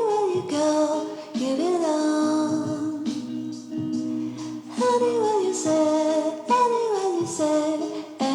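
Background song with a singing voice carrying a gliding melody over a steady instrumental accompaniment.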